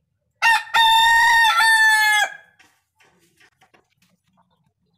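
A rooster crowing once, a single cock-a-doodle-doo of about two seconds: a short first note, then a long held note that steps down slightly before cutting off. A few faint clicks follow.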